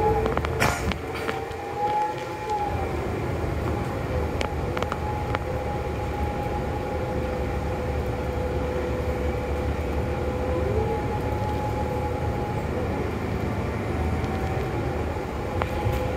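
Cabin sound of a New Flyer XD40 diesel city bus under way: a steady low rumble with a sustained whine that bends slightly in pitch twice as the speed changes. A sharp knock about a second in and a few light rattles.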